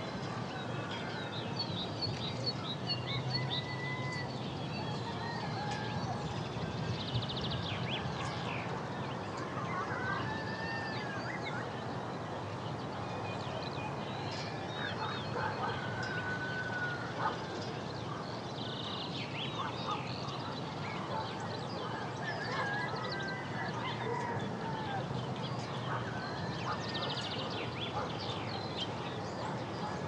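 Forest ambience: many birds calling, short chirps and arching whistled calls scattered throughout, over a steady background hiss.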